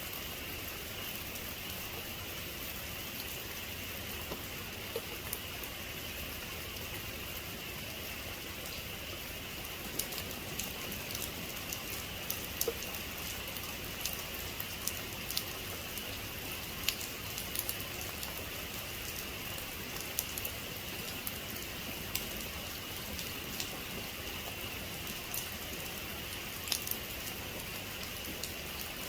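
Heavy rain falling steadily, a continuous hiss, with single drops ticking sharply on a surface now and then, more often in the second half.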